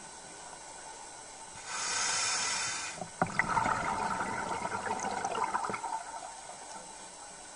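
A hiss of about a second, then about three seconds of gurgling water bubbles.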